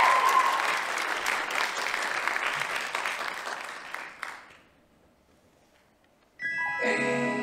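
Audience applauding and cheering, with a last whoop at the start, fading out over about four seconds. After a brief silence, soft music with sustained tones begins near the end.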